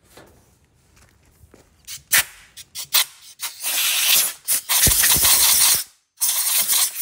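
Compressed-air blow gun blasting packed dirt off a chainsaw: a few short sharp puffs about two seconds in, then long blasts of hissing air, broken by a brief pause near the end.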